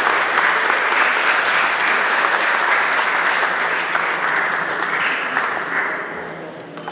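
Audience applauding: dense clapping that gradually dies away over the last two seconds or so.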